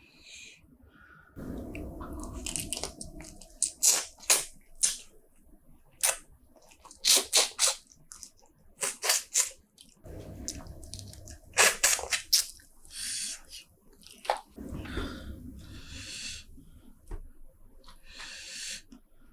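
Close-miked eating of seafood: chewing with wet smacks and sharp clicks in irregular bursts. There are a few longer stretches of muffled low noise between them.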